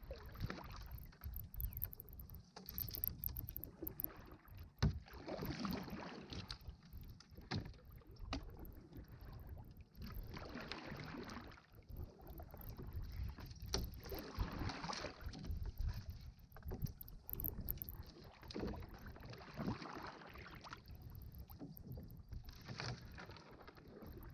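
Water splashing and swishing around a kayak, swelling and fading every two or three seconds, over a steady low rumble on the microphone.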